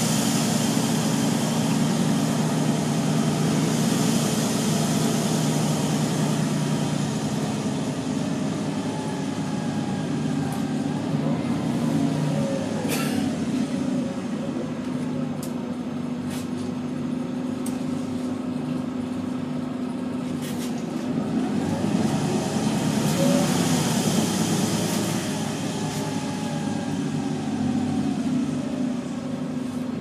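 Inside a moving Wright Eclipse Urban-bodied Volvo single-deck bus: the diesel engine and cooling fan run with steady road noise. The engine note rises and falls with speed a couple of times, and a few light rattles sound from the cabin.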